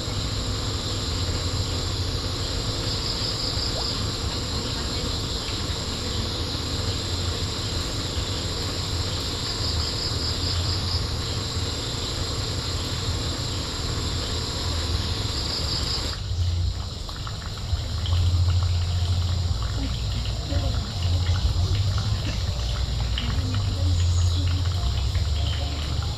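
Insects trilling steadily, with short pulsed chirps every few seconds. About sixteen seconds in the sound changes abruptly: the insect sound drops away, leaving low rumbling and scattered small rustles and clicks.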